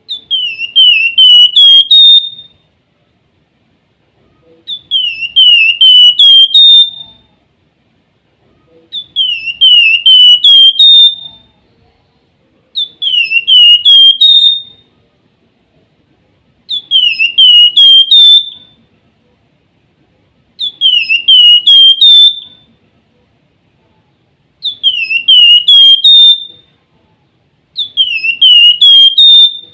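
Javan fulvetta (flamboyan) singing: a loud phrase of about five quick down-slurred whistles ending on a higher, held note, repeated about every four seconds.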